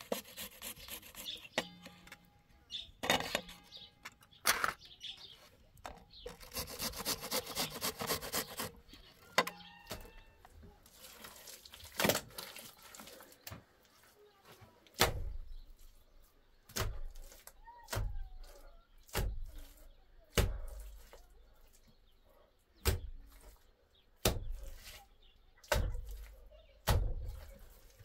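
A metal box grater rasping in a quick run of strokes. Then, from about halfway, wet mud plaster slapped by hand onto a concrete-block wall, a dull slap about every second and a half.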